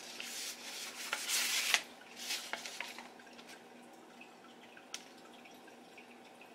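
A dried white sage bundle being handled, rustling and crackling in a run of quick noisy crackles over the first three seconds, then only faint handling with a single sharp click about five seconds in.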